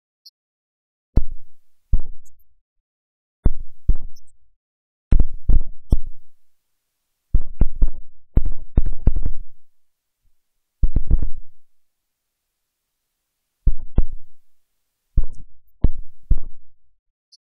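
A series of loud, sharp thumps, singly and in quick runs of two to five, each dying away in a short low boom.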